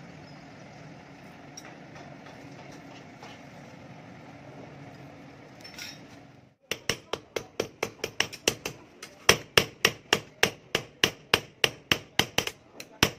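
Electric forge blower running steadily with a low hum while a steel sickle blade heats in the coals. About two-thirds through, this gives way to rapid hammer blows on an anvil, about four a second, as the hot blade is forged.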